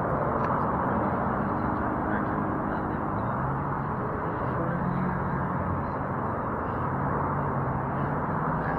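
Steady road traffic noise: a constant wash of sound with a low engine hum running through it.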